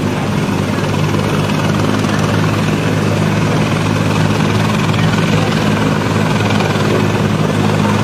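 Helicopter running on the ground with its rotors turning: a steady, loud drone with an even low hum underneath.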